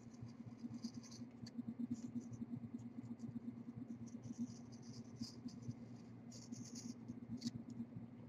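X-Acto hobby knife blade drawn through foamcore board to cut an inside bevel: quiet scratchy strokes in short runs, with a couple of light clicks, over a steady low hum.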